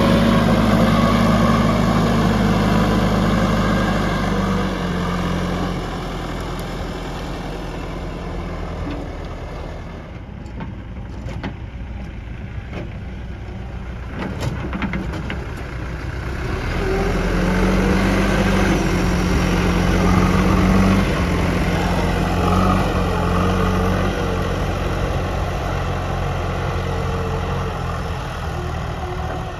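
JCB 3DX backhoe loader's diesel engine running steadily, working up to a higher pitch twice, at the start and again about two-thirds of the way in, and easing down toward idle between. A few light clicks or knocks come about a third of the way through.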